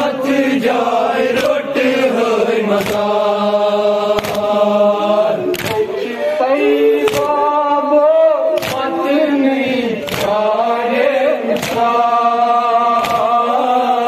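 Male mourners chanting a noha, a Muharram lament, in long held notes. A sharp chest-beat (matam) lands about every second and a half and keeps the rhythm.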